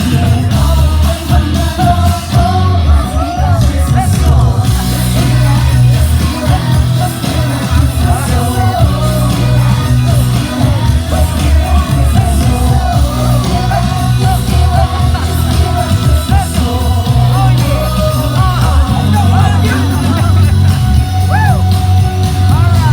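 Upbeat Christmas pop song with sung vocals over a heavy, steady bass beat.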